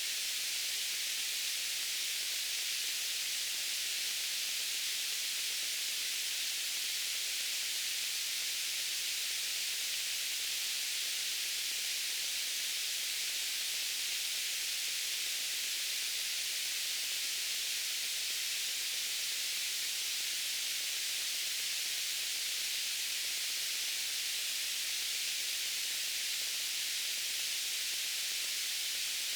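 Steady white-noise hiss, even and unchanging, weighted toward the high, hissy end.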